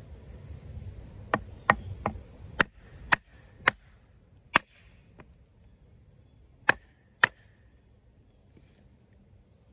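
Extrema Ratio Tuscan fixed-blade knife being batoned through a small piece of wood to split it: about ten sharp knocks, several in quick succession, then a few more spread out before they stop. Steady high cricket chirring underneath.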